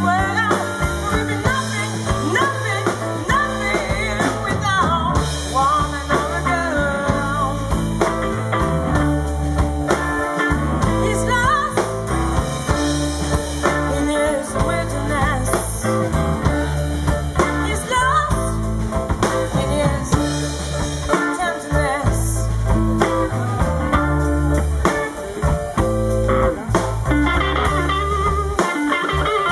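Live band playing a slow blues-soul number: electric guitar, bass guitar, drum kit and keyboard, with a woman singing at times.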